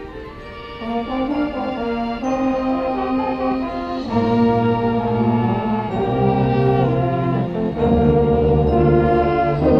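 High school marching band's brass section playing held chords, getting louder about four seconds in and again near the end as deeper notes fill in underneath.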